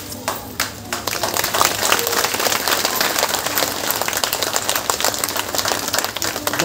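Crowd applauding an unveiling: dense clapping that swells in about a second in and keeps up steadily.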